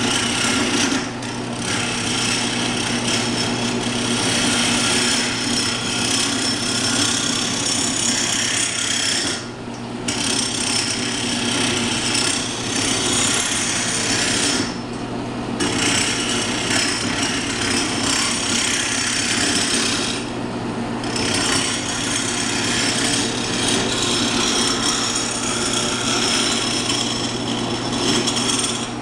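Wood lathe running with a steady motor hum while a homemade gouge, made from a car piston pin, cuts a hardwood cumaru spindle: continuous dense cutting noise, broken by a few short pauses as the tool comes off the wood.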